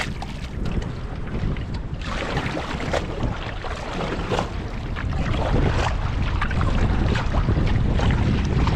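Wind buffeting the microphone over water sloshing and rushing around a canoe as it is paddled through current, with a short splash at the very start.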